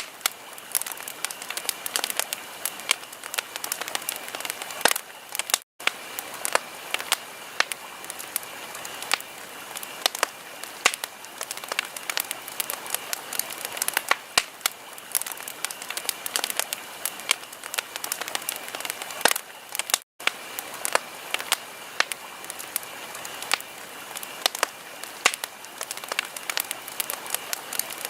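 Wood fire crackling, with many irregular sharp pops and snaps over a soft hiss. The sound cuts out for an instant twice, about six and twenty seconds in.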